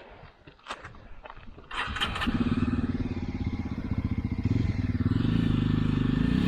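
A few light knocks, then about two seconds in a single-cylinder motorcycle engine comes in and runs steadily.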